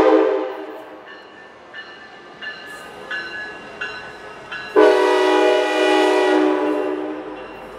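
Horn of Amtrak EMD F59PHI locomotive 456, running light, sounding as it passes through a station. A long chord blast fades out in the first second, then a second loud blast starts about five seconds in and lasts about two seconds.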